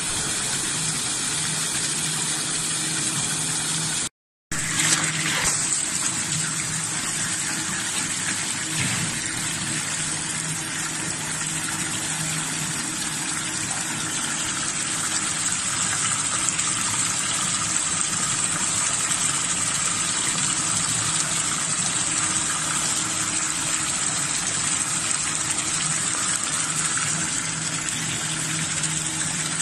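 Tap water gushing steadily into a tub where a plastic basket of shucked scallops is being washed, with some splashing as hands stir the scallops. A steady low hum runs underneath, and the sound cuts out completely for a moment about four seconds in.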